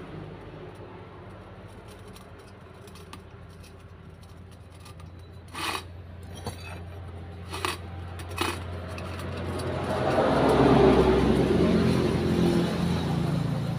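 Metal parts of a hydraulic bottle jack being handled: a few sharp clinks and knocks as the cylinder tube and a steel rod are worked in and out of the oily jack body. A steady low hum runs underneath, and a louder rushing noise swells and fades over the last few seconds.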